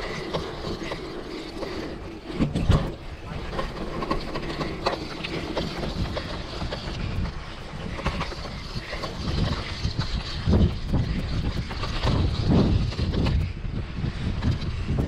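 Mountain bike riding along a dirt trail: tyre and drivetrain noise with scattered clicks and knocks from the bike, and low gusts of wind buffeting the microphone, heavier in the second half.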